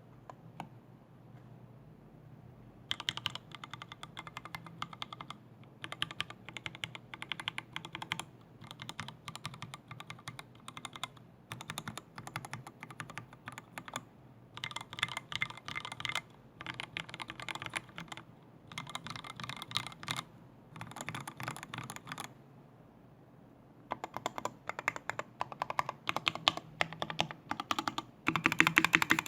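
Keystrokes on a custom 60% mechanical keyboard with lubed Tealios V2 linear switches on a brass plate in a solid aluminium case, with thick PBT keycaps. The keys are pressed in quick runs along each row, each run lasting a second or two with short pauses between. After a longer pause, heavier single presses follow on the modifier and stabilized keys, loudest near the end.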